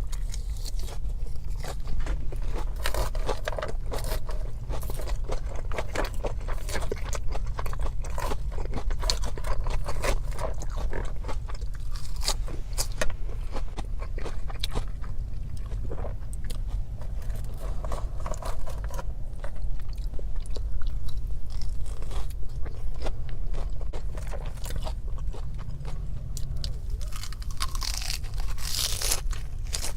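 Close-miked eating: a person biting and chewing food with many small crisp crunches and mouth clicks throughout, over a steady low hum, and a louder crunchy stretch near the end.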